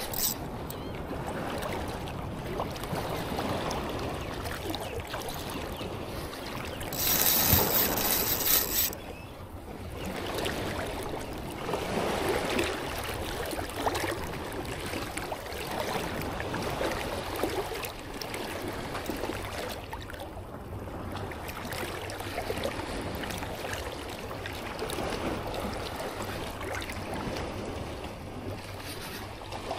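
Ocean surf washing onto the beach, a steady rushing hiss with wind on the microphone; a louder, brighter rush of about two seconds comes around seven seconds in.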